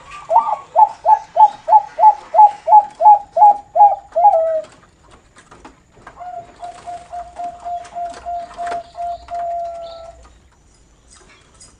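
Bangkok-strain perkutut (zebra dove) cooing in the song style keepers call noklak: a fast run of about a dozen short hooked notes that ends in a longer note, then, after a pause of under two seconds, a long even rolling coo of rapid notes held at one pitch for about four seconds.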